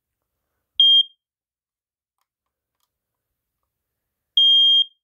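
Smoke alarm beeping: one short, high, piercing beep about a second in, then a longer beep near the end as its repeating alarm pattern begins.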